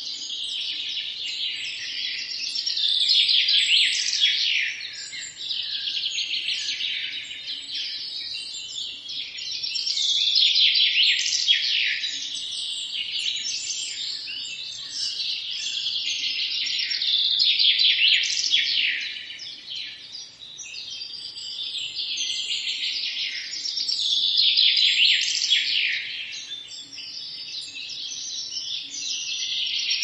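Songbirds singing, several high chirping and trilling songs overlapping without a break, swelling louder and fading back every several seconds.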